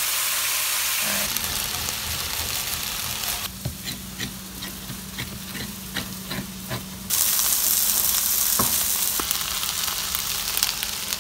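Fish fillets sizzling in oil in a stainless steel frying pan. About three and a half seconds in, the sizzle drops away under a run of sharp knife taps chopping parsley on a wooden cutting board. Loud frying sizzle returns for the last few seconds.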